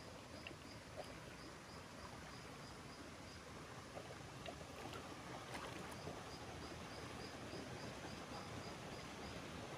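Faint outdoor night ambience: a steady hiss with two runs of quick high chirps, about four a second, from a small calling animal, and a few soft clicks.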